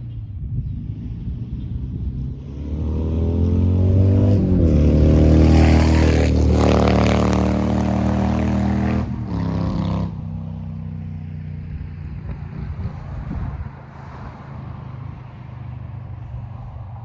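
Car on the move: a steady low road rumble, with a louder engine tone from about three seconds in. The tone rises in pitch and holds with a rushing noise, then drops away suddenly about ten seconds in.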